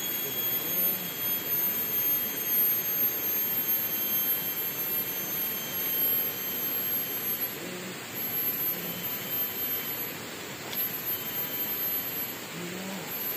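Steady rushing background noise with a thin, very high whine over it that breaks off a few times.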